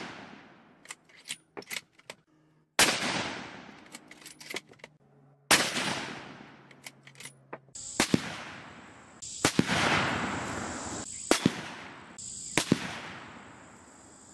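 Rifle shots from a .243 Winchester bolt-action rifle, each a sharp report with a long echoing tail. Two are fired about 2.7 s apart, while the echo of the shot before them is still dying out. After about 8 s come several more sharp reports and knocks in quicker succession over a steady high whine.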